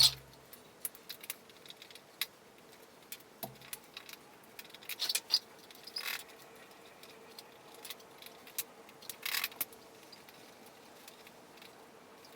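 Scattered light metallic clinks and rattles of hand tools and small metal parts being handled during ATV wheel work, with a sharp click at the start and a few short scraping sounds.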